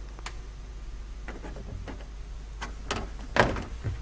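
Scattered light clicks and knocks of hand work on a Corvette's rear hatch hardware, the loudest about three and a half seconds in, over a steady low hum.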